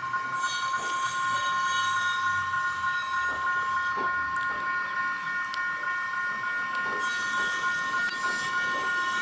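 Level-crossing warning alarm sounding a steady electronic chord of several unchanging tones, over the low rumble of an electric multiple-unit train pulling out towards the crossing.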